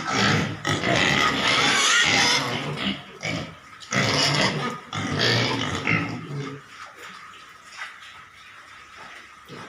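Pigs calling, loud and in two spells, the first about three seconds long and the second from about four to six and a half seconds in; after that only a few faint knocks.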